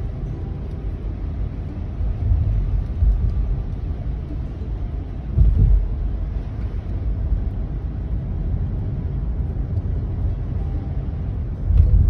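Low, steady road and engine rumble inside a car driving on wet pavement, with a brief louder surge about five and a half seconds in.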